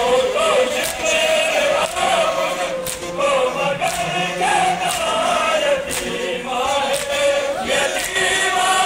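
Large crowd of men chanting a noha together, the Shia mourning chant of Muharram, with sharp slaps of hands beating on bare chests (matam) cutting through now and then.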